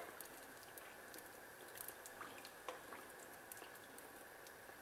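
Faint sizzling of pizza dough frying in a pan of oil, with a few soft scattered ticks.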